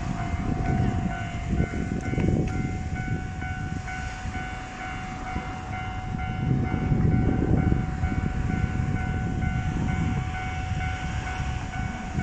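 Electric train running past a level crossing, its wheels rumbling on the rails and swelling as cars go by, while the crossing's warning bell keeps ringing its repeated clang.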